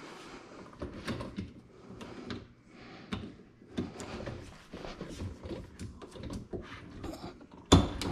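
Scattered clicks, knocks and rattles of a GE Profile dishwasher's rack and rail as the plastic stop cap on the rack rail is pressed and popped off. One sharp, loud click comes near the end.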